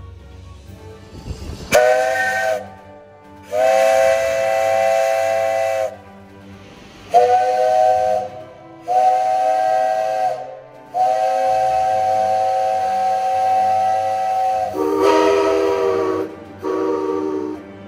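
Chime steam whistle of JNR 8620-class steam locomotive 58654 sounding seven blasts, short and long, each a chord of several tones, the longest held nearly four seconds; the last two blasts are lower in pitch. Steam hisses between the blasts.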